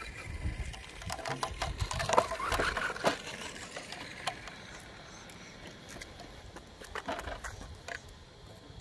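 Hard plastic body shell of an Arrma Kraton RC monster truck being lowered onto its chassis and pressed into place: a quick run of clicks and taps in the first few seconds, and a few more near the end.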